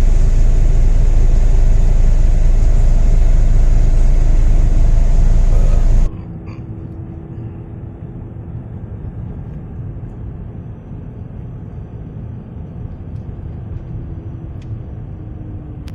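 Loud, steady low rumble of a car driving through a dust storm, wind and road noise together. It cuts off abruptly about six seconds in, leaving a much quieter steady background with a faint hum.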